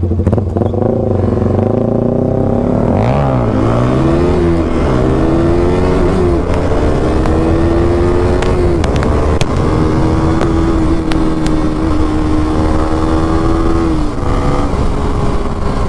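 Motorcycle engine at full throttle, accelerating hard: about three seconds in its note dips sharply and climbs back, then it rises steadily through the gears with brief dips at each shift, easing off near the end.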